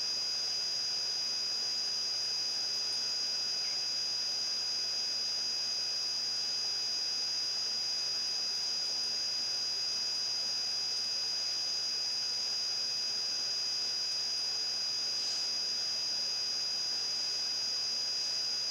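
Steady background noise: an even hiss with a constant high-pitched whine and a fainter low hum, and no distinct sounds over it.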